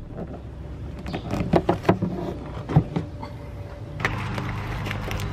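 Plastic clicks and scrapes from the cabin air filter tray being pulled free of the tabs on its housing under a 2005–2014 Mustang's cowl, several sharp clicks over the first three seconds. From about four seconds in, a steadier background hiss with light handling noise takes over.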